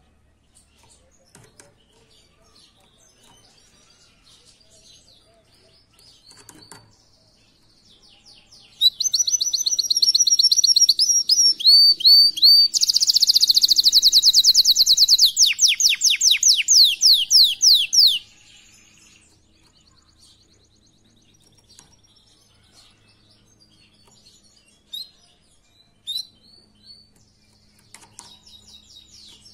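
Canary singing: a few soft chirps, then about nine seconds in a loud run of song lasting about ten seconds, made of fast rolling trills of rapidly repeated high notes that change pattern partway through, ending in quick falling sweeps. After that, soft scattered chirps again.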